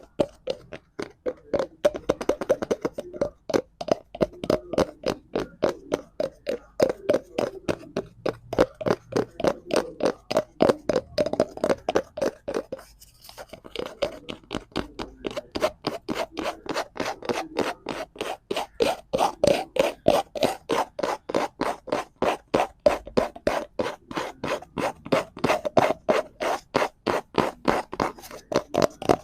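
Fingers scratching and rubbing a cardboard prop in a rapid, even run of short strokes, with a brief pause about 13 seconds in.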